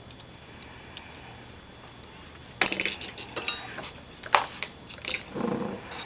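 Quiet room tone, then from about two and a half seconds in a flurry of light clicks and clinks as small soldering tools and a circuit board are handled on a workbench.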